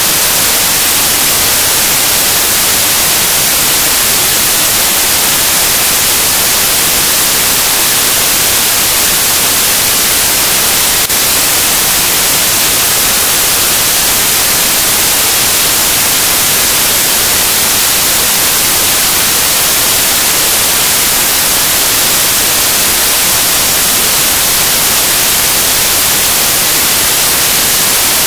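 Loud, steady static hiss filling the audio track, unchanging throughout, with no match sounds heard through it.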